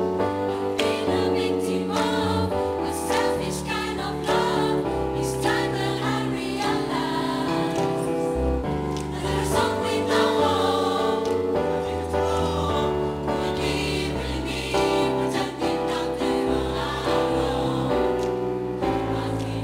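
Mixed choir singing an upbeat gospel-style song together, over accompaniment with a bass line and a steady beat.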